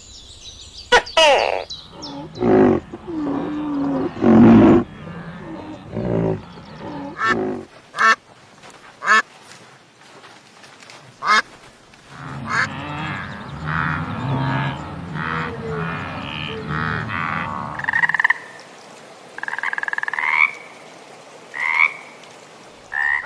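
Frogs croaking: a string of separate calls, then a denser stretch of croaking, with a few short rising calls near the end.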